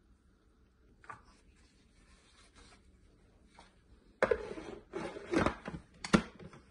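Clear plastic food processor lid set down on its bowl and twisted into place: scraping plastic on plastic with a few sharp clicks. It starts about four seconds in, and the last click near the end is the loudest.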